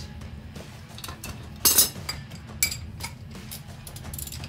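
Metal tools clinking and knocking against a Chevrolet Suburban's front suspension parts as the steering knuckle and ball joints are taken apart: a handful of sharp metallic clinks, the loudest about two seconds in.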